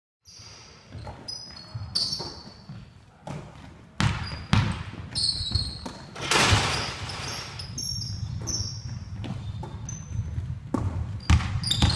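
Basketball drill in a large gym: the ball bounces and smacks against hands and the floor, with echoing impacts and short high squeaks of shoes on the wooden court. It starts abruptly just after the beginning.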